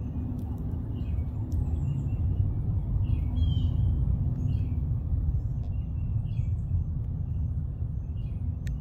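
Distant rocket launch, a steady low rumble, with small birds chirping now and then above it.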